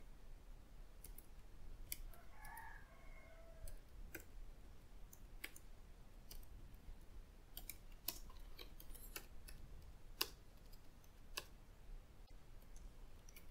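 Computer keyboard keys clicking faintly in irregular single keystrokes as code is typed.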